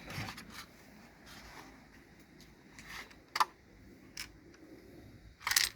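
A few light clicks and knocks of small plastic model parts being handled, with a louder cluster of clicks and rustling near the end.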